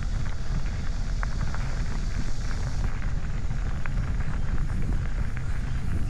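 Wind buffeting the microphone during an electric mountain bike ride, a steady low rumble with scattered small clicks and rattles from the bike and trail.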